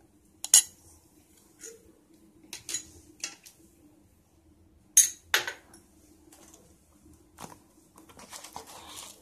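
Steel spoon and dishes clinking: a series of sharp separate clinks, the two loudest about five seconds in. Near the end a spice packet crinkles as it is handled.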